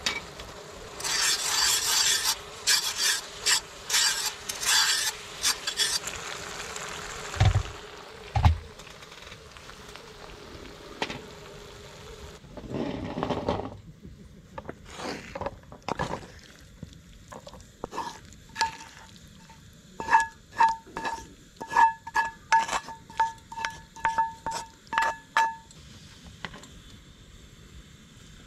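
Metal tongs scraping and stirring minced meat in a cast-iron skillet, in quick repeated strokes, followed by two dull thumps. Later a run of sharp metal clinks, two or three a second, each with a short ringing tone, as the mixture is scraped out of the skillet into a second pan.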